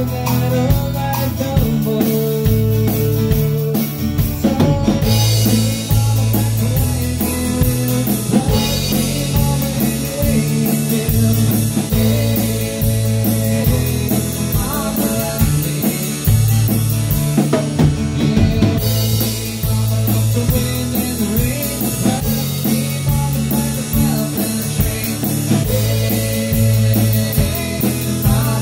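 A small band playing a song live: drum kit and guitar together, with the cymbals coming in about five seconds in and keeping a steady beat.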